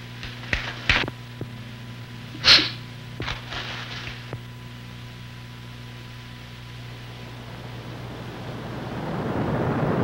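A man working up to a sneeze: a few light knocks, a short sharp sniff about two and a half seconds in, then a breathy build-up that rises over the last couple of seconds as the sneeze comes on. A steady low hum runs underneath.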